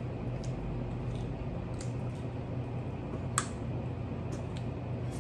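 Eating sounds from a seafood boil: wet, squishy chewing and picking at crab legs, with scattered small clicks and one sharp click a little past the middle, over a steady low room hum.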